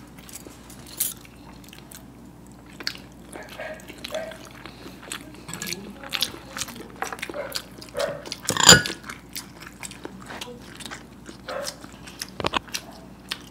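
Close-up eating sounds of people biting and chewing hard-boiled eggs coated in masala sauce: wet mouth clicks and smacks throughout. One sharp, much louder click comes a little before nine seconds in.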